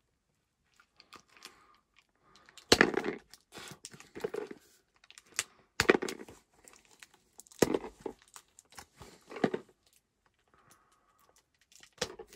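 Plastic shrink-wrap on a cardboard card-game bundle box being bitten and torn open with teeth, crinkling and crackling. It starts about two and a half seconds in and comes in four or five bursts, each opening with a sharp crack, with short pauses between.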